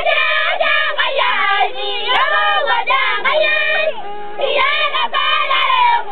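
A group of Maasai women singing a traditional welcome song together, several voices overlapping in short repeated phrases, with a brief dip about four seconds in.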